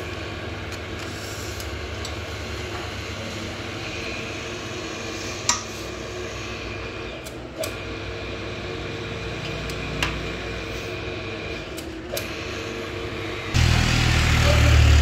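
Electric bar-twisting machine running with a steady mechanical hum as it twists a bundle of steel bars into a wrought-iron basket, with a few sharp metallic clicks from the bars. About 13.5 seconds in, a much louder rough noise starts abruptly.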